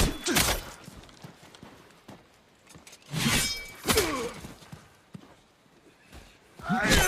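Katana sword-fight sound effects: several sharp clashes, one about three seconds in ringing on briefly like struck metal, mixed with short shouts that fall in pitch.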